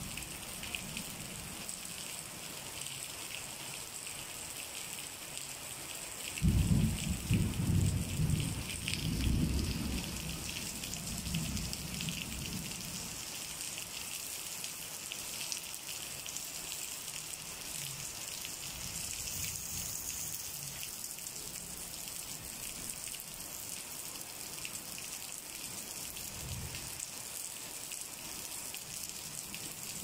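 Steady rain falling, with a roll of distant thunder that breaks in suddenly about six seconds in, rumbles in several swells and fades over the next several seconds. A short, fainter rumble comes near the end.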